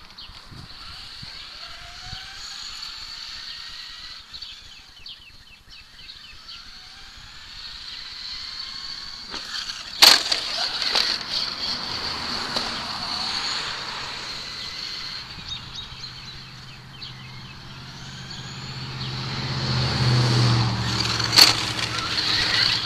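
Traxxas Slash 2WD radio-controlled truck's electric motor whining and revving up and down over a steady high whine, with two sharp knocks, one about ten seconds in and one near the end. A passing road vehicle's engine rumbles in the last few seconds.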